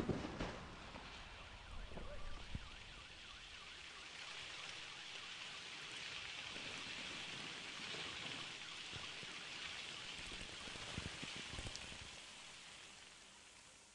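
Paint droplets pattering down like light rain, with scattered small drips and a few louder spatters, fading out near the end.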